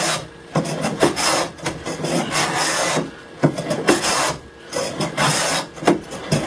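Hand plane shaving a wooden board, a run of rasping strokes of uneven length with short pauses between them.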